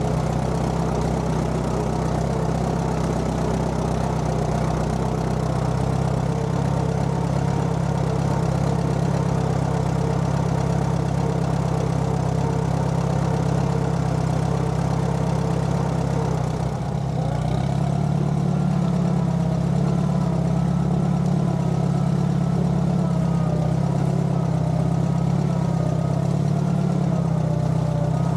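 Allis-Chalmers B tractor's four-cylinder engine running steadily as the tractor is driven, with a brief dip and slight shift in the engine note about two-thirds of the way through.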